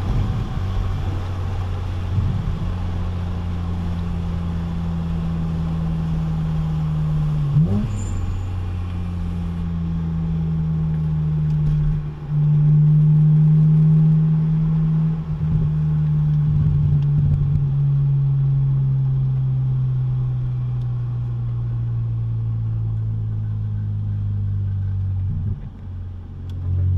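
Muffler-deleted BMW Z4 M's S54 straight-six running steadily as the car slows, its pitch drifting slightly lower. There is a quick rev blip about eight seconds in, and the sound drops briefly twice, around twelve seconds in and near the end.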